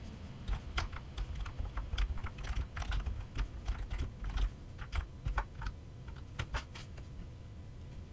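Typing on a computer keyboard: irregular key clicks, stopping about seven seconds in.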